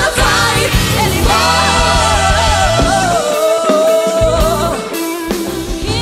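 Live band with women singing lead and backing vocals over horns, keys, bass and drums; the lead voice holds one long note in the middle while the bass and drums drop out for a moment before coming back in.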